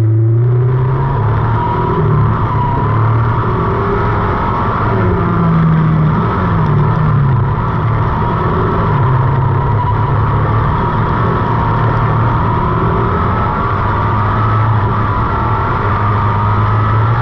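A tube-frame dirt-track racing car's engine running hard under load, heard from under the car. Its note rises and falls with throttle and gears over a steady rush of tyres, dirt and wind.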